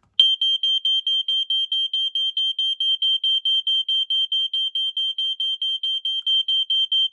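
FireX FXW-R smoke alarm sounding while being tested: a loud, high-pitched beep repeating rapidly and evenly, about five or six beeps a second, starting a moment in.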